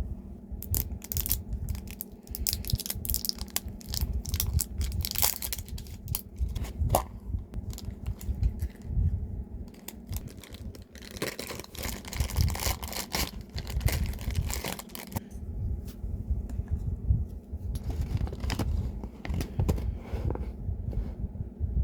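Blind-box packaging being torn open and handled: paper and plastic wrapping tearing and crinkling in irregular crackles, busiest in the middle, over a steady low hum.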